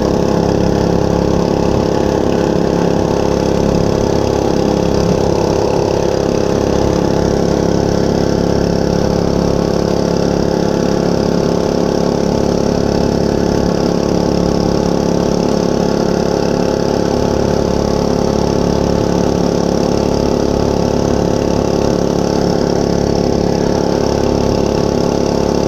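Monster Moto 105cc mini bike's small single-cylinder four-stroke engine running at a steady, unchanging pitch.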